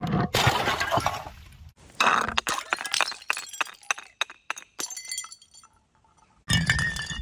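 Glass bottles shattering, three separate breaks: one at the start, one about two seconds in followed by shards scattering and clinking with a ringing tinkle, and a third near the end after a brief silence.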